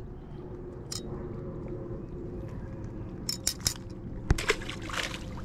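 Metal crab tongs clicking and clinking a few times, sharpest about a second in and in a cluster near the end, over a steady low rumble of wind and open-air background.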